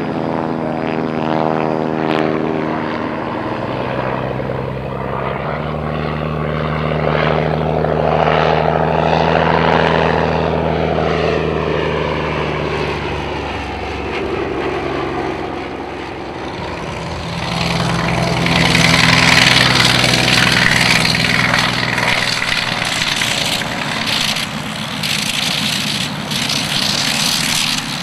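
Piston engines and propellers of First World War fighter biplanes flying by one after another. The engine note slides down and up in pitch as each aircraft passes, and is loudest about two-thirds through.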